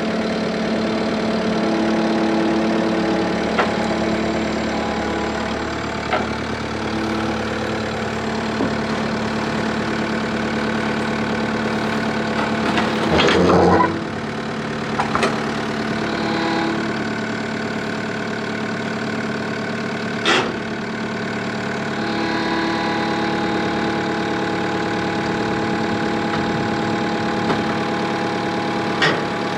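An engine idling steadily, with a few short sharp clanks and a louder burst about halfway through.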